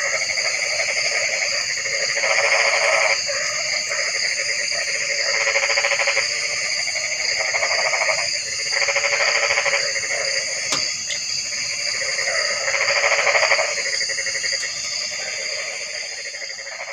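A chorus of calling frogs. Loud, rapidly pulsed calls come in bouts about a second long every couple of seconds, over a steady, high-pitched continuous trilling.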